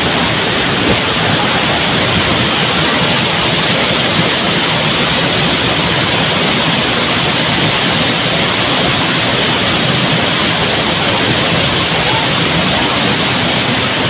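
Waterfall pouring down a cliff onto rocks and into a shallow pool, a loud steady rush of water with no breaks.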